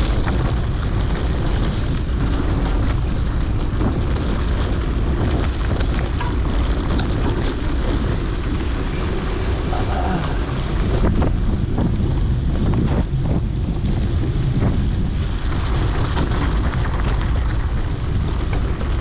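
Wind buffeting an action camera's microphone while mountain biking on a dirt trail, a steady loud rumble with scattered short clicks and rattles from the bike.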